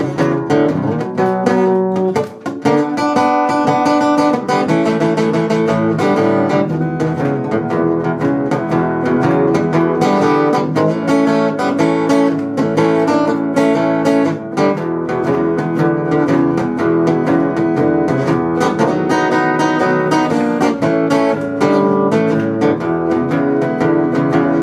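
Acoustic guitar playing an instrumental break in a twelve-bar blues, picked single notes over strummed chords.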